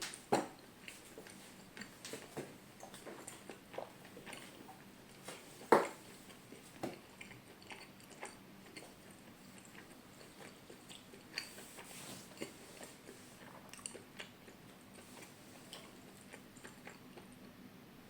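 Close-miked eating sounds: chewing with irregular wet clicks and crunches, with louder bites just after the start and about six seconds in.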